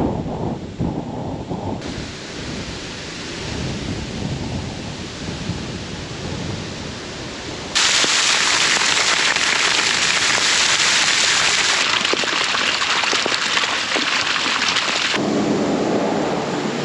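Gusty wind rumbling on the microphone, then, about eight seconds in, a sudden loud, steady hiss of heavy rain coming down as a band of storm rain arrives.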